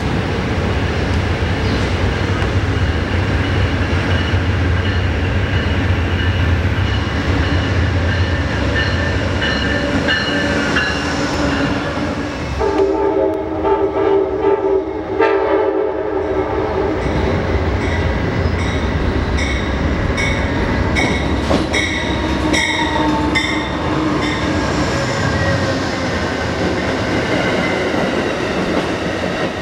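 Amtrak passenger trains hauled by GE Genesis diesel locomotives passing, with a steady rumble of engine and cars. About 13 s in, a locomotive horn sounds one long chord for about four seconds, followed by a run of rhythmic clacks of the wheels over rail joints.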